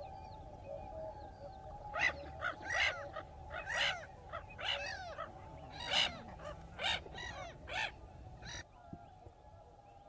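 Hooded gulls giving a series of about a dozen harsh, rasping calls, starting about two seconds in and stopping shortly before the end.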